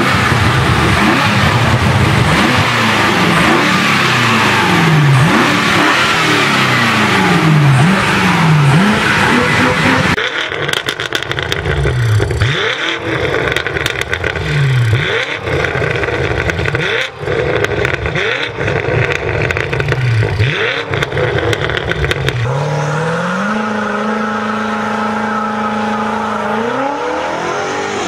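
BMW M8 Gran Coupe's 4.4-litre twin-turbo V8 through an Fi valvetronic catback exhaust, revved hard again and again, each rev rising and falling sharply. Near the end the revs climb and hold steady at launch revs for a few seconds, then rise again as the car launches.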